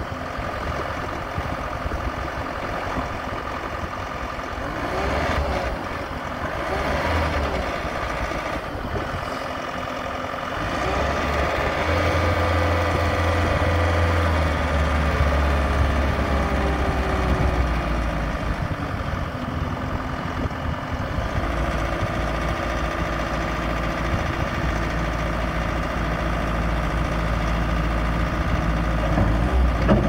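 2015 Bobcat T590 tracked skid steer's 66 hp diesel engine running at idle. Its pitch briefly rises and falls a few times in the first third, and the low hum grows heavier about 11 seconds in.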